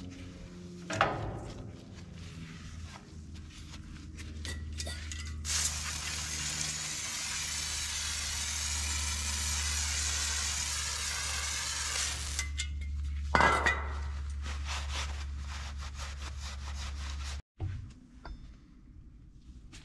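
Compressed air from a portable air tank blasting across a trailer axle spindle and brake assembly, a steady hiss lasting about six seconds, with short scraping and clinking bursts of rag and tool work before and after it.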